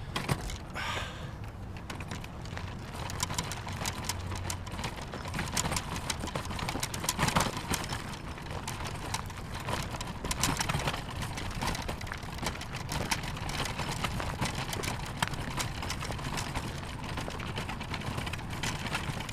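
Footsteps on a trail: a steady run of irregular crunches, clicks and rattles as someone walks.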